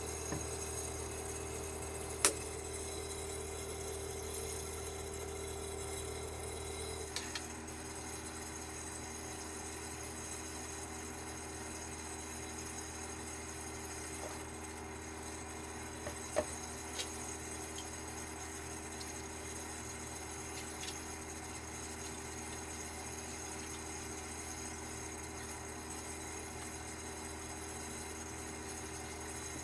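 Quiet steady hum inside a camper van, broken by a few sharp clicks and taps of tableware and a plastic bottle during a meal, the loudest about two seconds in. A faint steady tone in the hum stops about seven seconds in.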